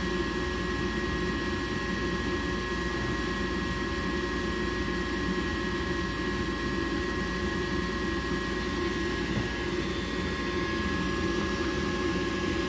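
Gas furnace's draft inducer motor running steadily during the pre-ignition stage while the igniter heats up: a constant low hum with a thin steady whine above it.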